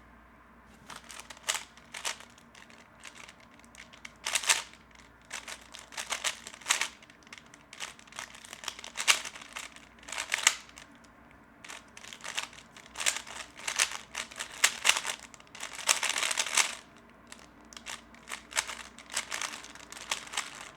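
3x3 Rubik's cube being turned fast in a timed speedsolve: quick runs of plastic clicks and clacks broken by short pauses, with one longer unbroken flurry near the end. The solver finds his turning clunky, with the cube locking up a little.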